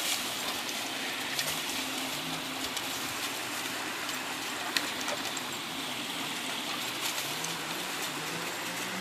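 Steady rushing of a small woodland creek flowing over rocks, with a few faint scattered clicks.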